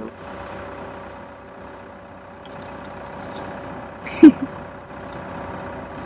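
Dry rolled oats shaken and poured by the handful from a plastic jar, a few short dry rustles and rattles over a steady hum. A brief vocal sound about four seconds in.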